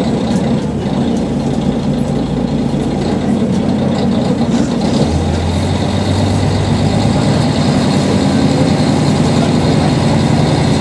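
Diesel railcar engine running as the train rolls slowly, heard from inside the passenger cabin: a steady low drone whose note shifts about halfway through.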